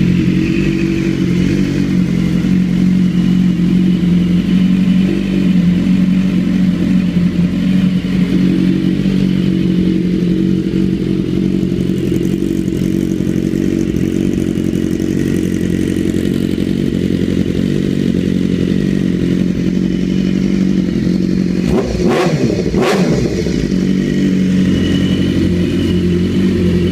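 BMW S1000RR inline-four engine idling steadily through an Akrapovič Shorty full exhaust system. Two short sharp sounds, with a brief wobble in the engine note, come about three-quarters of the way through.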